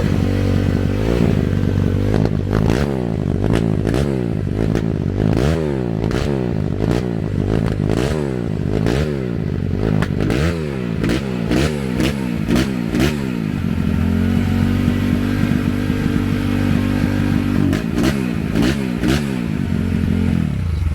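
YCF Pilot 150 pit bike's single-cylinder four-stroke engine running through a YCF factory exhaust. The throttle is blipped over and over, about once a second, then the engine settles to a steady idle before a few more blips near the end. The exhaust note sounds like a big 250 or 450 bike.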